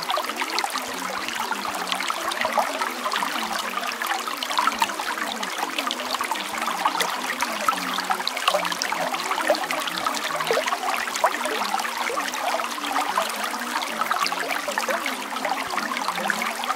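Steady trickling and splashing of running water, like a small stream, continuous and even throughout.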